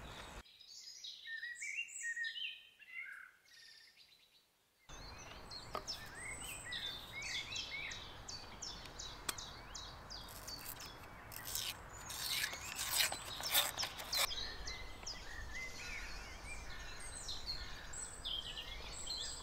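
Birds chirping and singing over a faint outdoor hiss. Between about 10 and 14 seconds in come a series of sharp clicks and cracks as a cardboard tube of canned dough is handled and peeled open.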